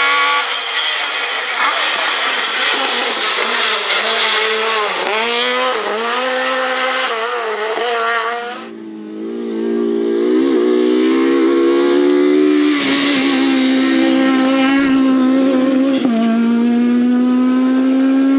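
Rally car engine driven hard, its revs rising and falling sharply with throttle and gear changes. About eight seconds in it lifts off briefly, then pulls up through the gears again, the pitch climbing and dropping back at each shift.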